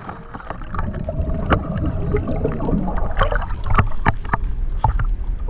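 Sea water sloshing and splashing against shoreline rocks, with a steady low rumble of wind on the microphone and scattered small splashes.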